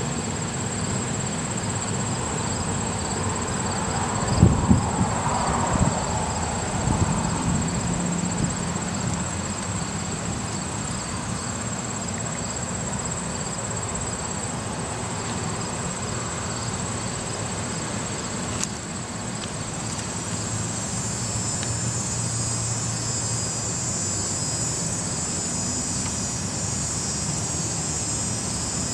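Outdoor ambience: a steady high-pitched insect trill over a low background rumble. Wind buffets the microphone a few seconds in, and there is one faint click about two-thirds of the way through.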